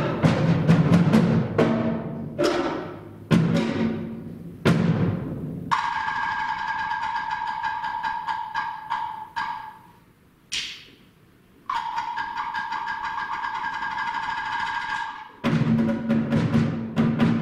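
Live drums struck in a rhythmic pattern, the low drum heads ringing after each hit. About six seconds in they give way to a held, ringing high tone with overtones that dies away, one sharp strike, then a second held tone; the drum strikes return near the end.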